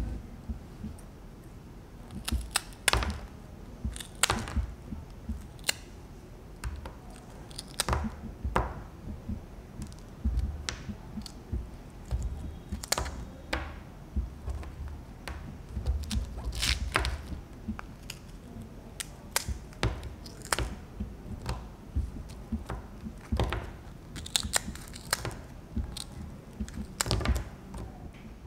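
Slab of dalgona honeycomb candy being struck and broken with a blade tip on a wooden table: irregular sharp cracks and knocks, a few seconds apart, with dull thuds as the brittle pieces snap.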